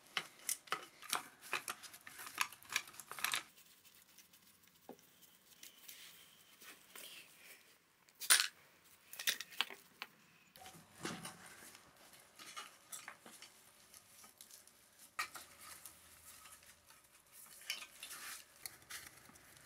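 Metal hand tools and loosened motorcycle parts clicking and clinking during disassembly: a quick run of clicks in the first few seconds, a sharp metal clank about eight seconds in, then scattered clinks.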